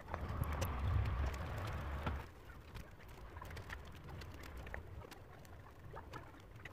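Soft rustling and small scattered clicks of freshly cut withies being woven by hand around the upright stakes of a wicker frame. A low rumble sounds for the first two seconds.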